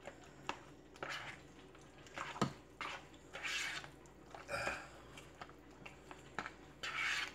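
Spoon stirring thick, mayonnaise-dressed potato salad in a plastic mixing bowl: irregular wet scrapes and light taps against the bowl, about one every second.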